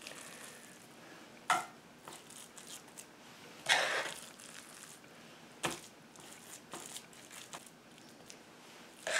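Moist cornbread dressing being scooped and spread into a frying pan: soft squishing and scraping, with sharper scrapes or knocks about one and a half, four and almost six seconds in.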